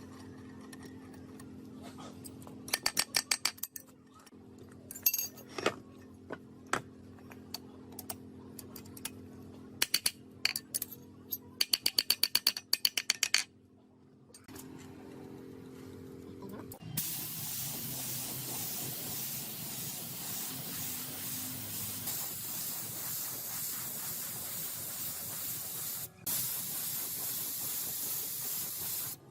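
Aerosol spray-paint can shaken in two bursts, its mixing ball rattling in rapid clicks, then sprayed in a long steady hiss from about halfway, with one brief break near the end.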